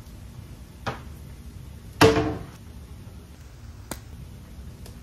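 Spice containers handled at a kitchen cabinet: a light knock, then a louder knock with a short ring about two seconds in. Near the end comes a sharp plastic click as the lid of a spice container is snapped open.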